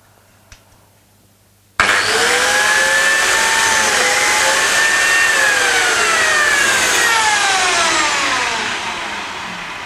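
Biscuit jointer switched on suddenly about two seconds in, running with a steady high whine while cutting a slot in scrap wood, then switched off and winding down with a long falling whine.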